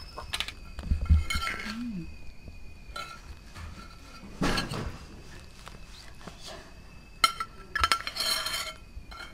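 Cutlery and dishes clinking: clusters of sharp metallic clinks with a brief ringing, around the start, in the middle and near the end, with a dull knock about a second in.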